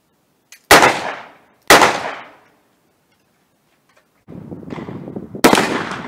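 Two loud gunshots about a second apart from a Ruger Redhawk .44 Magnum revolver, each trailing off over about half a second. Near the end, over steady outdoor background noise, a single shot from a scoped lever-action rifle, the Marlin in .450 Marlin.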